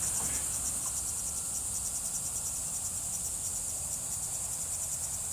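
Steady, high-pitched insect chorus with a fast, even pulsing trill.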